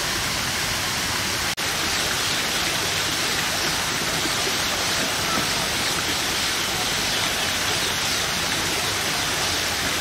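Steady rushing of falling water, with a brief drop-out about a second and a half in.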